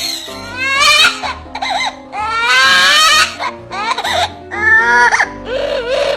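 A pet parrot mimicking a crying baby: a run of loud wailing cries whose pitch wavers and rises.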